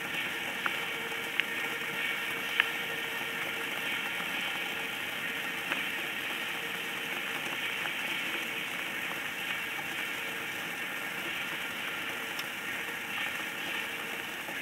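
Shallow water trickling and bubbling around a stone: a steady fizzing crackle, with a few sharp ticks in the first six seconds.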